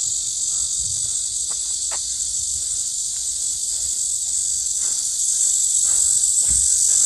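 Steady high-pitched chorus of insects singing without a break.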